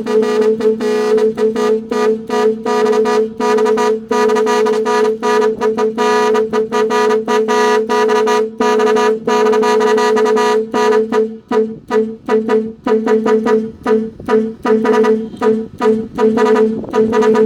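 Thai-style truck air horn blowing two steady notes, chopped on and off in a fast rhythm by a touch-controlled 'Cicada' stutter controller: nearly continuous with brief breaks at first, then in short quick blasts for the last several seconds.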